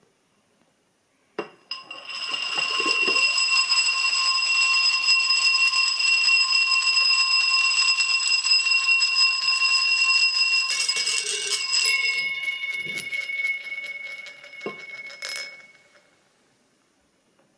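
A small bead rolling round and round inside a swirled brandy glass, making the glass ring with a steady, bell-like high tone over a rolling rumble. It starts with a click. Near the end come two sharp knocks as the bead drops into a martini glass and the glass is set down.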